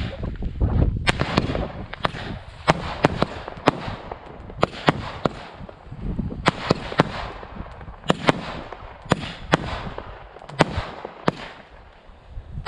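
Black Cat 'Ad Astra' firework cake firing a barrage of shots: a string of sharp bangs and cracks, about two a second and unevenly spaced, over a steady hiss and low rumble.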